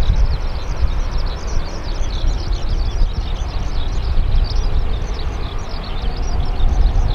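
Rolls-Royce Trent 1000 engines of a Boeing 787-8 running at taxi power as the airliner rolls slowly along the runway: a steady low rumble. Many quick bird chirps sound over it.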